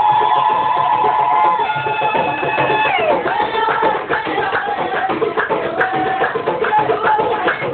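Music with hand drums beating a steady rhythm under a melody of long held notes that slide down in pitch, with shorter, choppier notes over the drumming in the second half.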